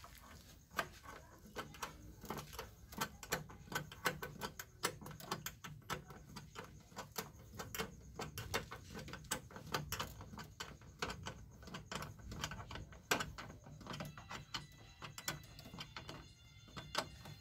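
Irregular run of small clicks and knocks from hand work on a car's wiring: wires, plastic connectors and tools being handled.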